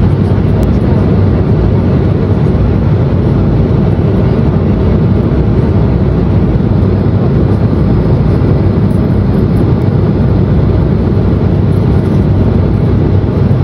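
Steady cabin noise inside an Embraer E190 airliner in flight: its two GE CF34-10E turbofans running and air rushing past the fuselage, heard as an even deep rumble with a hiss above it.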